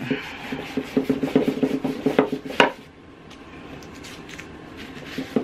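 Brisk rubbing strokes on a painted frame piece, scrubbing fresh paint off to give it a chipped look. There is a sharp knock about two and a half seconds in, then softer, quieter rubbing.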